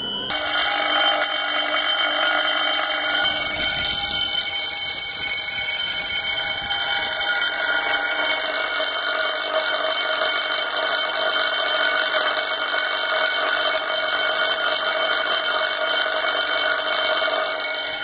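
Wheelock MB-24-G10 motor bell, an outdoor fire alarm bell, ringing continuously and loudly as the building's fire alarm sounds. It comes in suddenly just after the start and then rings steadily and evenly.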